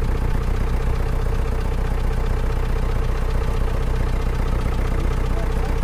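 Mahindra jeep engine idling steadily, a constant low rumble with an even hum.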